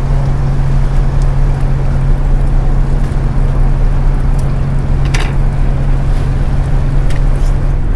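Small boat's outboard motor idling, a steady low hum over a low rumble.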